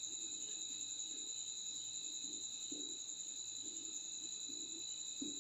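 Faint strokes of a marker writing on a whiteboard, under a steady high-pitched tone.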